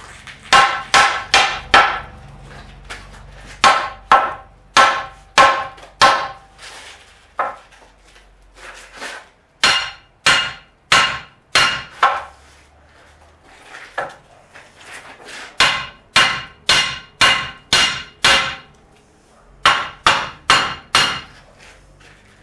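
Hammer blows ringing on metal, in runs of several quick strikes, about two a second, with short pauses between the runs.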